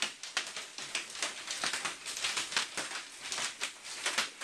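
Hail pounding down: a dense, irregular clatter of hailstones striking hard surfaces.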